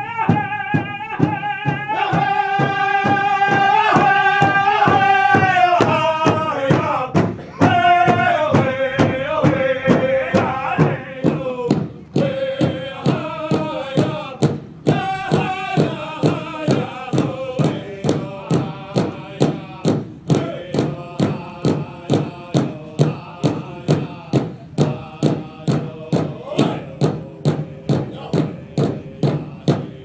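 Powwow drum group: men singing a high chant that holds long notes and then steps down in pitch, over a steady unison drumbeat on a large powwow drum at about two beats a second. The singing drops back in the second half, leaving the drumbeat more prominent.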